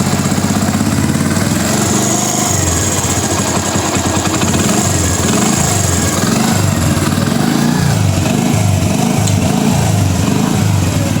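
Hero Splendor motorcycle's single-cylinder four-stroke engine running at idle, freshly rebuilt with a new piston, valves and clutch. The tone wavers a little from about two seconds in.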